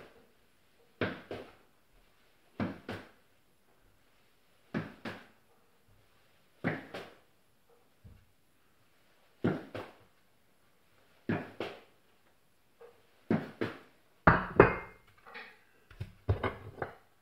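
Slow footsteps on a tiled floor, landing in pairs about every two seconds. Near the end they give way to a quick run of louder knocks and clatter of things being handled on a kitchen worktop.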